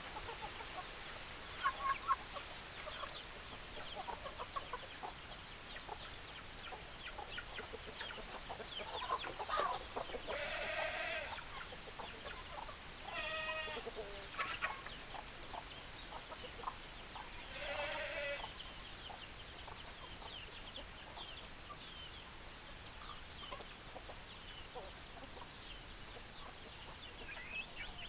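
A flock of chickens clucking, with many short clucks throughout. Three longer, drawn-out calls come about ten, thirteen and eighteen seconds in.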